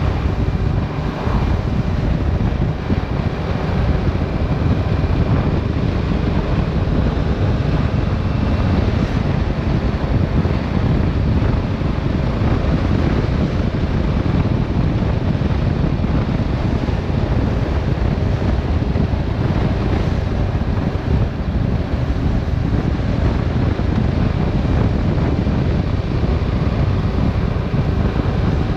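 Steady wind rush over a GoPro microphone on a moving Yamaha Tracer 7 motorcycle, with the bike's 689 cc parallel-twin engine running underneath.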